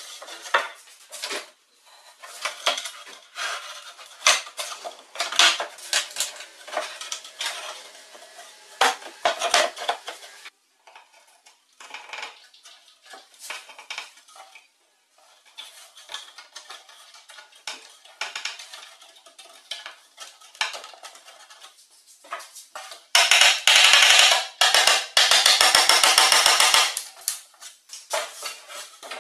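Wooden workpieces being handled on a workbench: scattered knocks and clatter of plywood and pine pieces. Near the end comes a louder, dense run of rapid knocking and rubbing as the plywood panels are worked into the frame.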